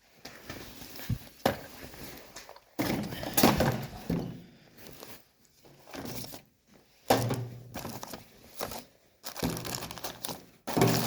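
Rummaging through parts and packaging: rustling and crinkling with irregular knocks and thunks of objects being moved and set down.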